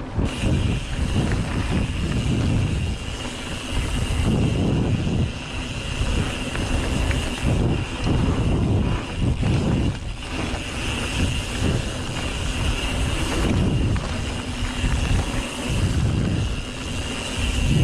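Mountain bike rolling down a dirt trail: uneven, gusting rumble of wind on the microphone mixed with tyre and frame rattle over the trail surface, with a steady high buzz underneath.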